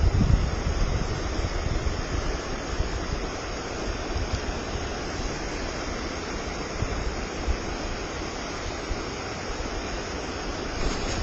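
Steady rush of whitewater river rapids, with a brief low buffet of wind on the microphone at the start.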